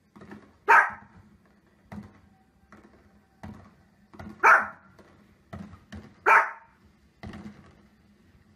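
A small fluffy dog barking: three loud, sharp barks a couple of seconds apart, with fainter short pops and knocks in between.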